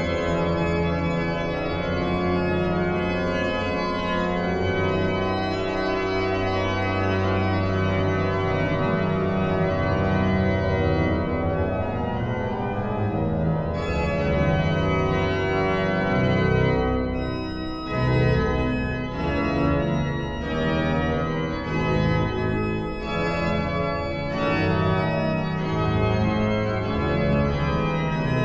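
The 1714 Great Silbermann pipe organ playing full sustained chords over deep pedal bass notes. About 18 seconds in there is a brief break, after which the notes change more quickly.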